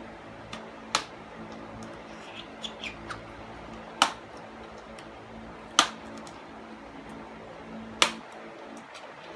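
Plastic retaining clips on the bottom cover of an Acer Predator Helios 300 laptop snapping loose as the panel is pried off: four sharp snaps a second or two apart, with a few fainter clicks between.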